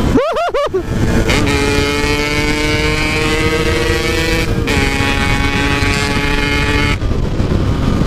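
Yamaha RX-King two-stroke single-cylinder engine revving hard under full acceleration, with wind on the microphone. The note rises quickly in the first second, then holds steady at high revs, dips a little at a gear change about halfway through, and drops away near the end.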